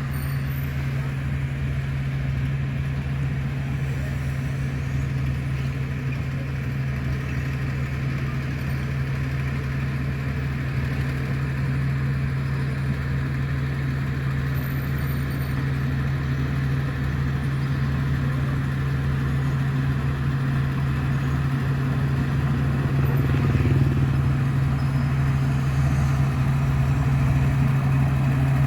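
Heavy diesel engine of construction machinery running steadily with a constant low hum, getting a little louder over the last few seconds.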